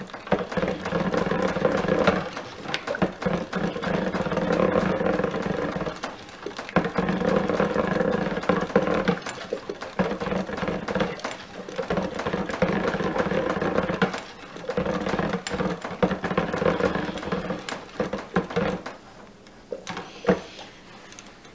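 Stick blender motor running in a stainless steel pot of cold-process soap batter, blending it in runs of about four seconds with short pauses between, then switched off near the end.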